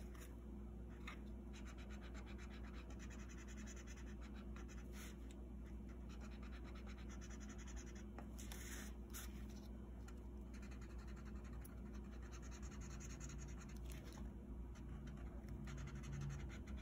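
Felt-tip marker scratching faintly on paper in short back-and-forth strokes while colouring in, with a few louder ticks.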